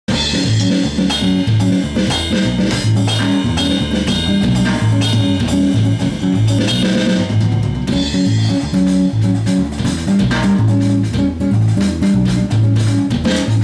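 Electric bass guitar and electronic drum kit jamming together: sustained low bass notes over a steady drum beat.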